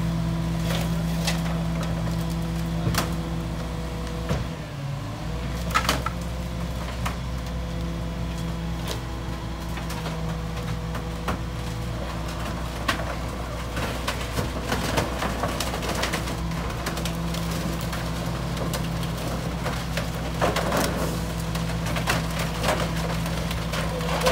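Rear-loader garbage truck's engine running steadily, with scattered knocks and clatter of wooden panels and branches being thrown into the rear hopper.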